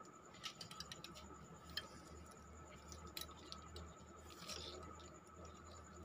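Faint handling noises: scattered light clicks and scrapes as wires and plastic washing-machine timer parts are picked up and moved on a tabletop.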